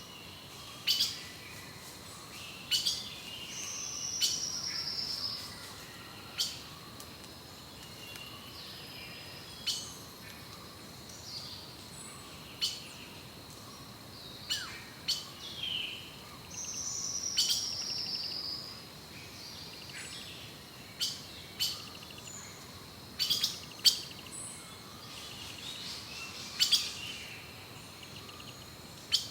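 Forest birds calling: many short, sharp chirps scattered throughout, and twice a longer trill of about a second that drifts slightly downward in pitch. A faint, steady high tone runs underneath.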